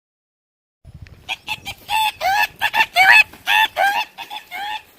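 A wild bird giving a fast series of about a dozen short calls, each bending upward in pitch, starting about a second in and running for some four seconds.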